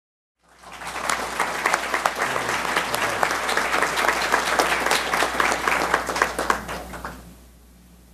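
Audience applauding: many hands clapping together, starting about half a second in and dying away about a second before the end.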